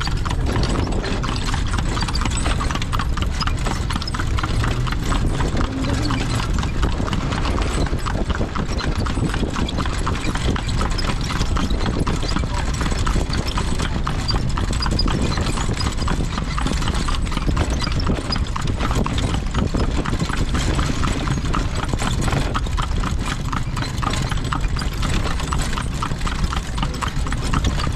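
Kalesa horse's hooves clip-clopping steadily on the road as it pulls the carriage, over the low rumble of the carriage rolling along.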